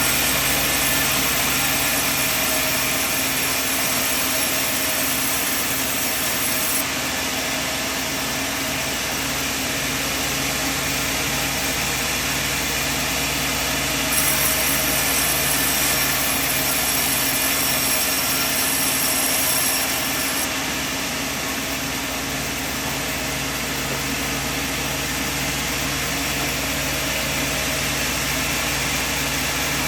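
Sawmill machine running steadily, a continuous mechanical noise with a higher hiss that brightens for several seconds midway.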